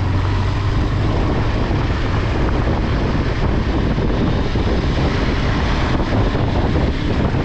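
Motorcycle running steadily along the road, its engine drone mixed with wind rushing over the microphone.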